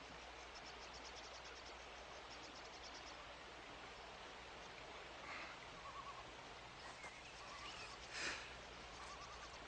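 Faint outdoor nature ambience from a film soundtrack: an insect chirring in quick high ticks for the first few seconds, then scattered short bird calls. A brief, louder rustle-like noise comes just after eight seconds, over a steady low hum.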